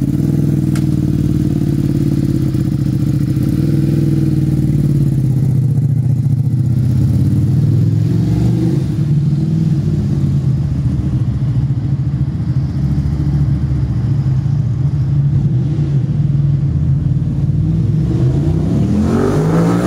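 Ducati Panigale V2's 955 cc L-twin engine running loud and steady through a full Akrapovič exhaust, then revving up sharply near the end.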